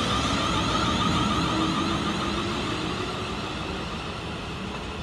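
Double Class 450 Desiro electric multiple unit accelerating away from the platform, its traction equipment giving a whistling whine over the rumble of the wheels. A lower tone rises slightly in pitch, and the whole sound fades as the train draws away.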